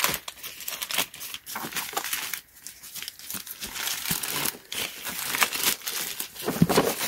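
Plastic poly mailer bag crinkling and rustling in irregular crackles as it is pulled open and a plastic case is slid out of it, with a brief quieter moment about two and a half seconds in.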